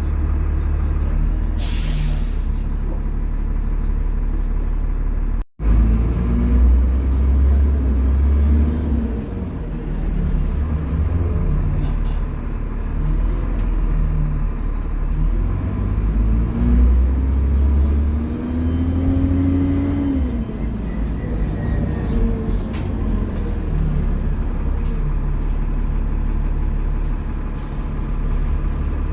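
Dennis Trident double-decker bus engine heard on board, with a short hiss of air from the brakes about two seconds in. The sound cuts out for an instant near five seconds, then the engine revs up and drops back several times as the bus pulls away through its gears.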